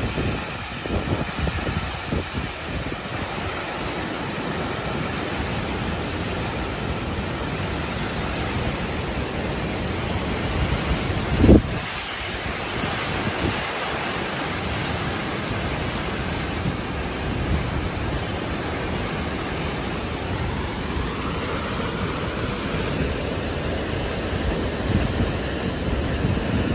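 Heavy storm rain with gusting wind that buffets the microphone in low rumbles. One short, loud blast comes about eleven and a half seconds in.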